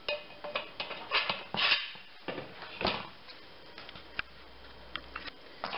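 Square steel futon frame tube being slid by hand over the end of another tube: scattered clicks and knocks of metal on metal, with a few short scraping rasps.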